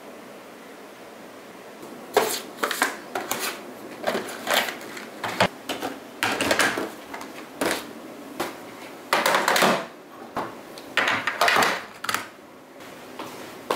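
Small hard plastic and metal desk items, such as remote controls, a calculator, a stapler and a hole punch, clattering and knocking as they are lifted out of a drawer and set down on a table. The handling starts about two seconds in and comes as irregular clicks and knocks mixed with short rustles.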